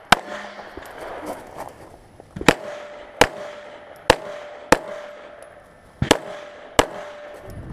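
Pistol shots on a firing range: about seven sharp reports, irregularly spaced roughly half a second to a second and a half apart, as a string of fire during a qualification course.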